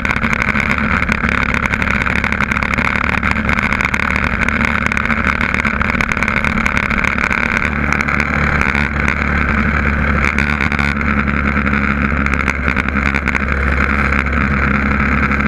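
Yamaha TT600E's single-cylinder four-stroke engine running steadily at highway cruising speed, heard from the bike with the rush of riding air; the engine note shifts slightly about eight seconds in.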